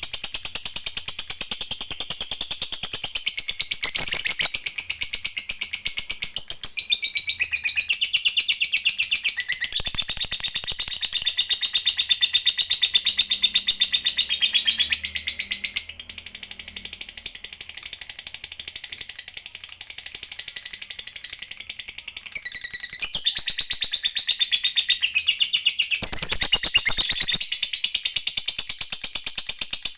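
Lovebird giving a long, unbroken 'ngekek' chatter: a fast, high trill of many notes a second that shifts its pattern a few times without stopping.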